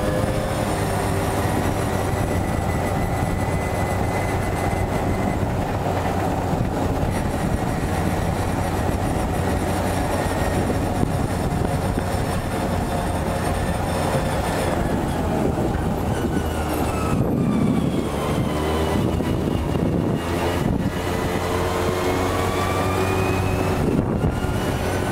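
Quad bike engine running on the move, its pitch falling and rising with changes in speed, over a steady road noise.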